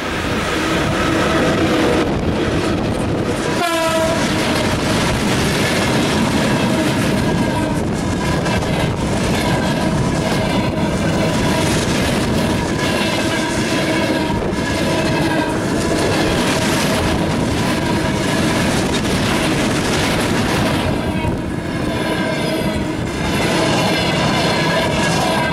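A VL80S electric freight locomotive passes at speed, its sound dropping sharply in pitch as it goes by about four seconds in. After it, a long train of open freight wagons rumbles past, with a steady clatter of wheels over rail joints and a ringing tone from the rails.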